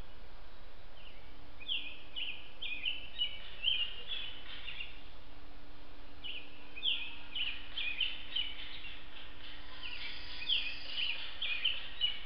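A songbird singing three songs, each a run of short down-slurred whistled notes about three a second, over a steady hiss and a faint steady hum.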